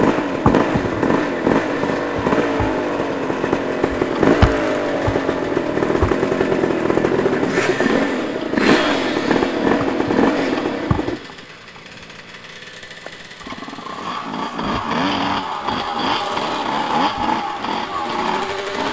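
Dirt bike engine running under load up a rocky trail, with scattered knocks and clatter over the rocks. Just past halfway the engine drops away for about two seconds, then comes back at a higher pitch.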